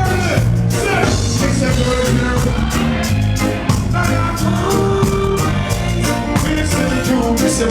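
Live reggae band playing, with a heavy bass line and a steady drum beat.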